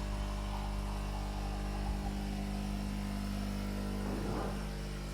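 Steady low electrical hum from an appliance running, made of several held low tones.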